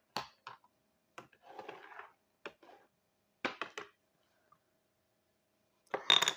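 Small objects being handled: a few light clicks and knocks, a soft rustle about one and a half seconds in, a quick run of clicks about three and a half seconds in, and a louder clatter near the end.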